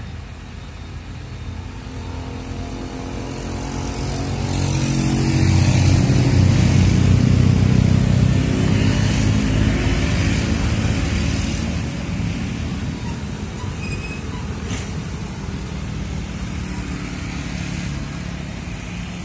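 Diesel engine of a Hino 500 wingbox truck running under load as the stalled truck is reversed, getting louder over the first several seconds and easing off after about twelve seconds.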